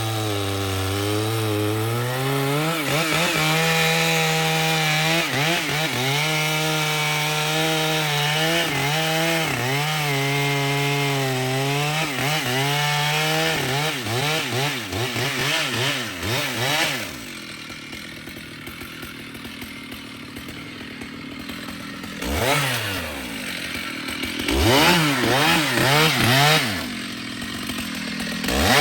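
Stihl two-stroke chainsaw running at full throttle, cutting wood for about the first thirteen seconds. It then revs up and down, drops to idle about seventeen seconds in, and is blipped sharply several times near the end.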